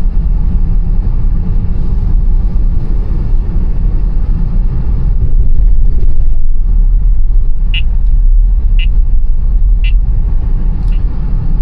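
Steady low road and tyre rumble inside a Tesla's cabin while driving on a snowy road, with no engine note. Three short high beeps sound about a second apart in the second half.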